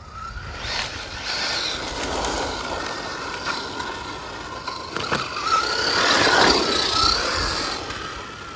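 Brushless FTX Zorro RC car being driven fast, its electric motor and drivetrain whining in a pitch that rises and falls with the throttle, over the noise of the tyres on the ground. It grows louder toward the middle, loudest about six to seven seconds in, then fades near the end.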